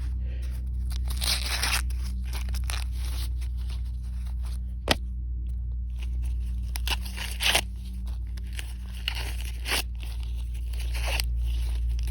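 Dry corn husks being torn and peeled back from an ear of corn by hand: irregular crackling tearing with a few sharp snaps, over a steady low hum.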